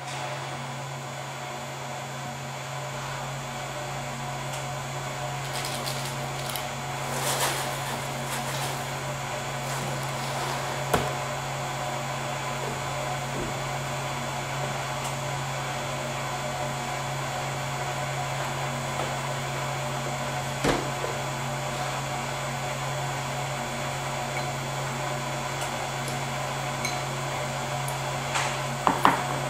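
A steady low hum fills the room throughout. Over it come a short rustling stretch about seven seconds in and a few sharp clicks, with a metal spoon clinking against a ceramic cereal bowl near the end.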